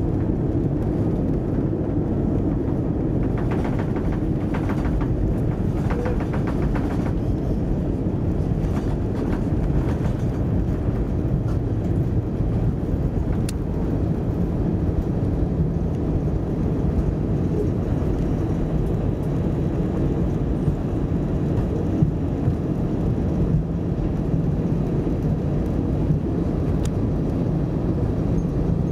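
Steady low rumble in the cabin of an Airbus A320 rolling along the runway and taxiway just after touchdown: engine and wheel noise through the fuselage, with a few faint clicks and rattles.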